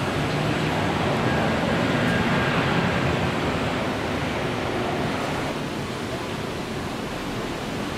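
Jet airliner engine noise during the landing roll on a wet runway: a steady rushing roar with a faint whine in it. It swells about two to three seconds in and eases off after about five seconds.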